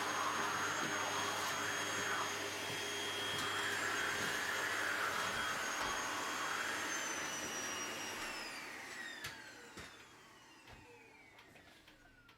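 Vacuum cleaner running steadily, then switched off about eight seconds in, its motor whine falling in pitch as it spins down. A few light clicks and knocks come near the end.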